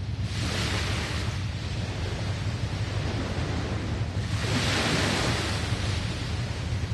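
Sea waves breaking and washing in over a steady low rumble of surf: one surge right at the start and a bigger one about four to five seconds in.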